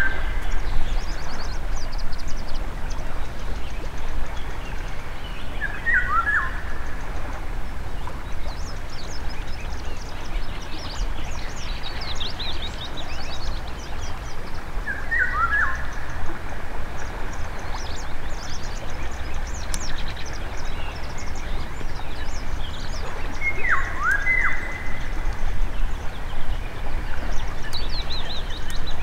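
Songbirds calling: one bird repeats a short call of a few falling notes four times, several seconds apart, while other small birds chirp higher, over a steady low rumble.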